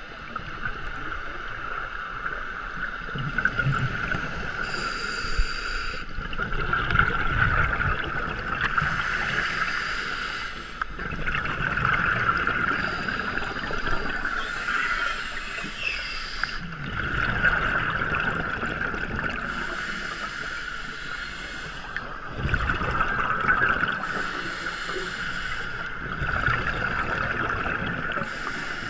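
Scuba diver breathing through a regulator, recorded underwater. Exhaled bubbles gush out in loud bursts about every five to six seconds over a constant hiss.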